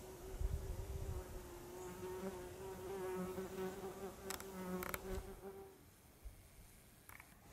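Wings of a flying insect buzzing close to the microphone, a steady hum that stops about six seconds in. There is a low rumble near the start and two short clicks near the end of the hum.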